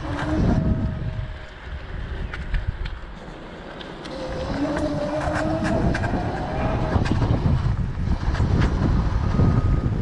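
Kaabo Wolf Warrior X Pro+ electric scooter riding along: wind rumble on the microphone and road noise, with a thin whine that comes in at the start and again from about four seconds in, rising slightly in pitch for a few seconds, and a few sharp clicks.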